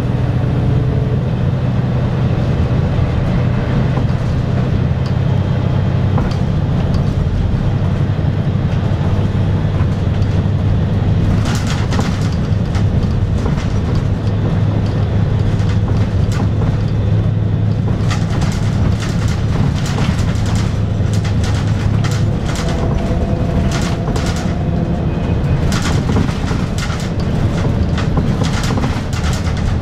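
Volvo B7R city bus heard from inside the cabin while driving: the diesel engine runs with a steady low drone, over road noise and clicking, rattling cabin fittings. About 22 seconds in, the engine note changes and the drone drops away.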